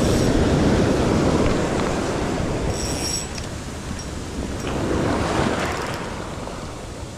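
Ocean surf breaking and washing up the beach, loud at the start and swelling again with another wave about five seconds in, with wind buffeting the microphone.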